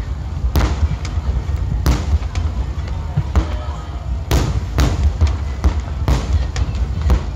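Aerial fireworks shells bursting in quick succession, about nine sharp bangs over a continuous low rumble.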